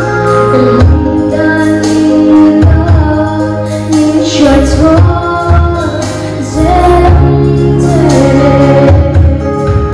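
A woman sings a Mizo gospel song into a microphone, holding long notes over an instrumental accompaniment with a steady bass line and a beat.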